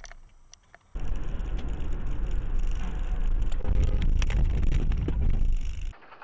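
Car driving at speed as picked up by an in-car dashcam: loud, steady low road and engine rumble with wind noise and a few clicks. It starts suddenly about a second in and cuts off abruptly near the end.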